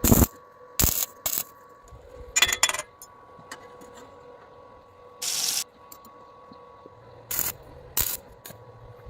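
Several sharp metallic clanks and clatters at irregular intervals, typical of steel pieces and tools being handled for welding, with a brief hiss a little past the middle. A faint steady hum runs underneath.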